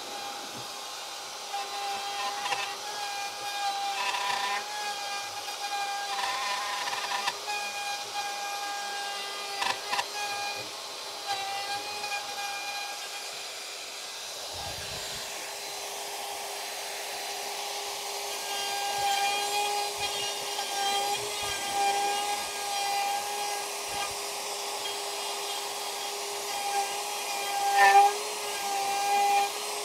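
Power tool running with a steady whine while cutting out a recess in a chipboard saw-table top, getting louder now and then as it bites into the board.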